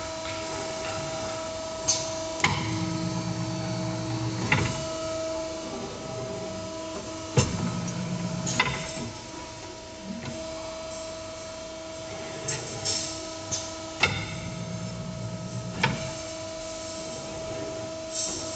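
Evaporator tube bending machine running its bending cycle: a steady hum with sharp clacks every few seconds. A low buzz sets in for a second or two at a time, several times.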